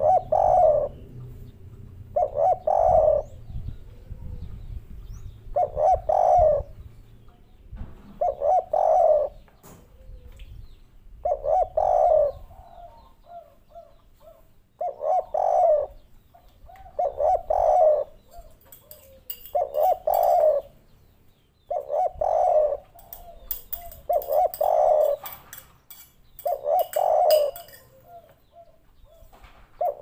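Spotted dove cooing: a short phrase of a few low coo notes, repeated about every two and a half seconds, the song type that keepers call 'kuk 3'.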